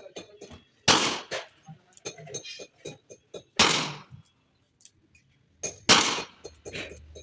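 Three shots from a .32 S&W Long Alfa Proj revolver, about two and a half seconds apart, each sharp with a short decaying tail. Lighter clicks and knocks sound between the shots.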